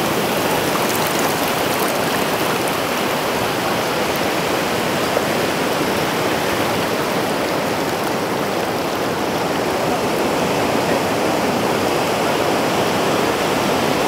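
Shallow water rushing steadily over beach sand as it flows into the sea, a continuous, even wash with foam.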